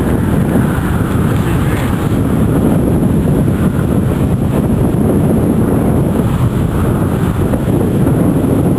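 Wind buffeting the microphone: a loud, steady rumble.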